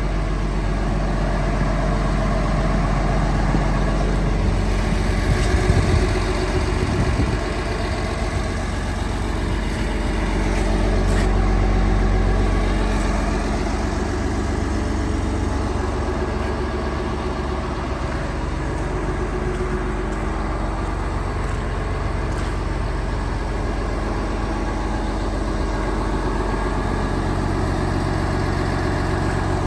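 Liebherr PR756 crawler dozer's diesel engine running steadily. It rises briefly about five to seven seconds in and swells again around eleven to thirteen seconds.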